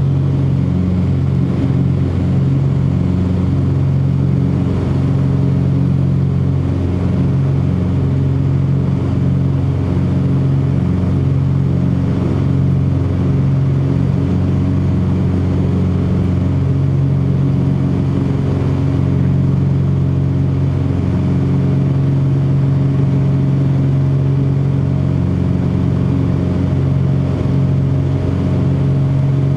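Cessna 404 Titan's twin piston engines and propellers running steadily, a continuous drone made of several fixed low tones that wobble slightly against each other.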